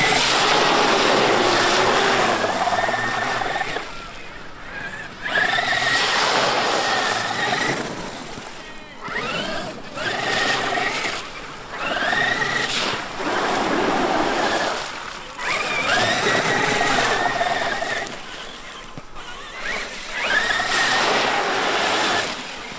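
Traxxas X-Maxx 8S brushless electric RC monster truck accelerating in repeated bursts of throttle through a muddy puddle: a rising electric motor and drivetrain whine with the hiss of water and mud spraying from the tyres. Each burst lasts a couple of seconds, with quieter gaps between.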